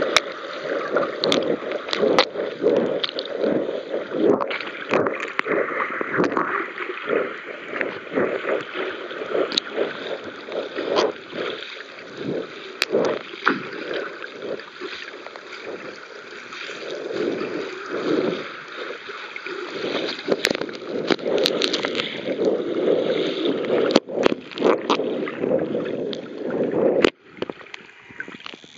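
Underwater recording: muffled rushing and gurgling water around a submerged camera as the swimmer moves, with scattered sharp clicks. The sound drops away briefly near the end.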